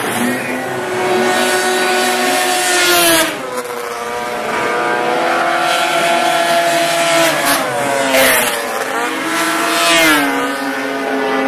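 Several vintage racing snowmobiles' two-stroke engines running hard as the sleds pass one after another. Their pitch drops sharply about three seconds in and again near the end.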